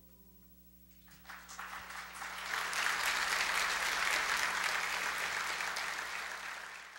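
A held piano chord fades out, then about a second in a church congregation breaks into applause that builds quickly and keeps going.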